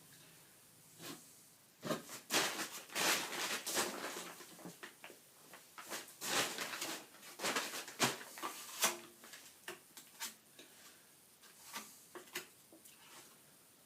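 Plastering trowel working wet plaster into a hole in a wall: irregular scrapes and sharp knocks of the tool against plaster and board, busiest in the first half.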